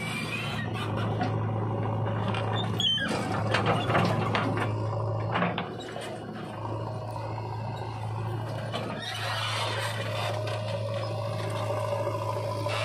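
Diesel engines of a Sonalika tractor and a JCB 3DX backhoe loader running with a steady low hum while the backhoe works its arm over the loaded trailer. A stretch of clattering and scraping comes about three to five seconds in.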